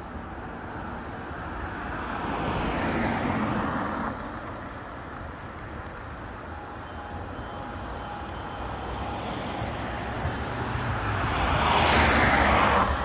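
Road traffic on a busy main road: cars pass with a rush of tyre and engine noise, swelling about three seconds in and again, louder, near the end.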